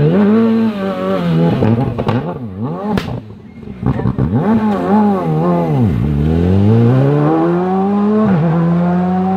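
Rally car engine revving hard and dropping off again and again as the car claws its way off the grass and back onto the road, with one sharp crack about three seconds in. It then accelerates away in a long rising rev that drops with a gear change near the end.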